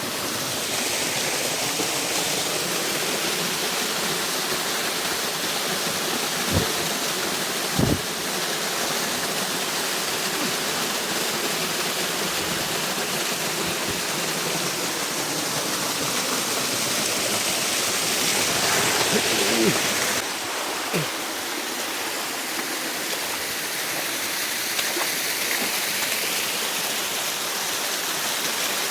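Water of a jungle stream rushing steadily, with two brief knocks at about six and eight seconds in.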